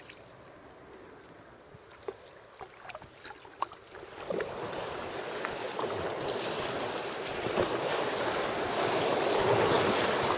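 Canoe paddle strokes with short splashes and knocks, then from about four seconds in a rushing noise of water and wind on the microphone that builds steadily louder as the canoe runs into rougher water.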